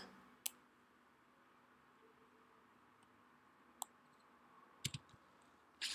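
Near silence: faint room tone broken by a few short, sharp clicks, one about half a second in, one near four seconds, a quick pair near five seconds and another near the end.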